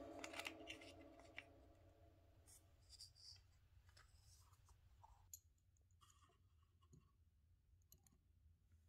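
Near silence with faint, scattered clicks and taps of small objects being handled: miniature books set into a tiny wooden suitcase and its lid closed. Background music fades out in the first second.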